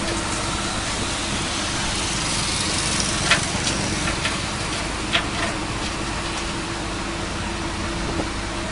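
Heavy diesel engine idling steadily, with a few short sharp knocks over it, the loudest about three seconds in and another about five seconds in.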